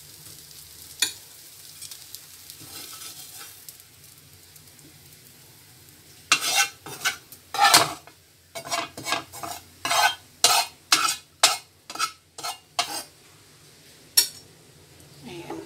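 Faint sizzling of oil in a nonstick frying pan, then from about halfway through a run of quick spatula scrapes across the pan, roughly two a second, with one last scrape near the end.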